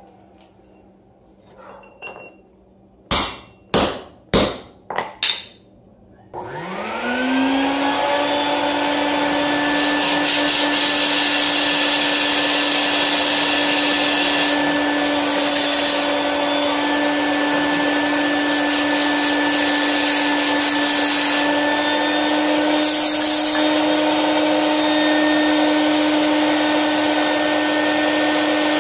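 A handful of sharp knocks, then a bucket-top wet/dry shop vacuum starts with a rising whine and runs steadily. Several bursts of compressed air from a blow gun hiss over it as concrete dust is cleared out of drilled anchor holes.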